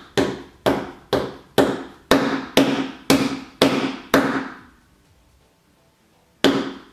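A hand knocking on a wooden tabletop in a steady beat of about two knocks a second, each ringing briefly. The knocking stops about four seconds in, and there is one more knock near the end.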